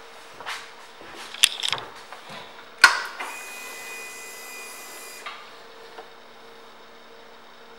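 Clicks of the 2017 Harley-Davidson Road Glide Ultra's controls as its ignition is switched on, ending in one sharp click. A steady electric whine follows for about two seconds and cuts off, the fuel pump priming ahead of starting the engine.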